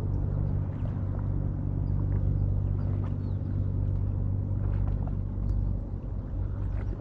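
Steady low drone of a running engine, holding an even pitch.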